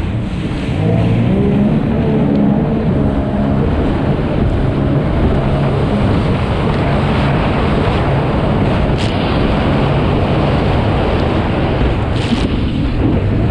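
Sea-Doo Spark personal watercraft engine running at racing speed, its note rising and falling in pitch over a steady rush of water and wind. There are two brief hisses, about nine and twelve seconds in.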